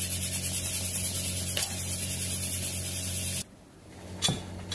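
Steady electrical hum with a high hiss, which cuts off abruptly about three and a half seconds in. Near the end a steel spoon clinks once against a steel cooker pot.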